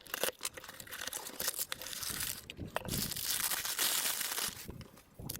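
Packing material crinkling and crackling as a parcel is unwrapped, with many small sharp crackles, loudest in the middle of the stretch.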